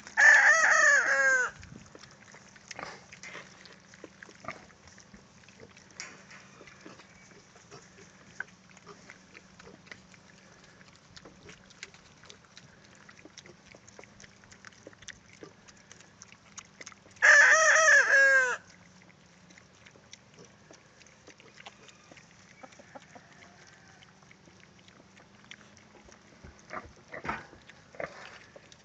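A rooster crowing twice, once at the start and again about 17 seconds later, each crow lasting a little over a second. Faint clicks and rustles fill the gaps between the crows.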